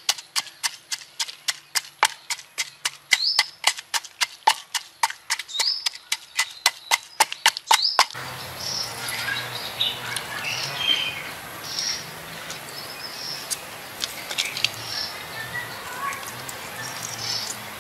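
Wooden pestle pounding red chilies and salt in a wooden mortar: sharp knocks, about three to four a second. About eight seconds in, the pounding stops and birds chirping over a steady low hum take over, with an occasional knock.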